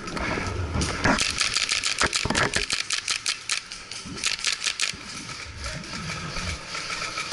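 Airsoft guns firing rapid strings of shots. One run of sharp clicks comes about a second in and another about four seconds in.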